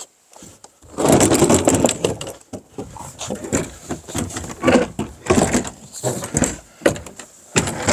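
Removable bonnet of a race car being rocked and lifted off its front clips by hand: irregular scraping, rattling and knocks of the panel, starting about a second in.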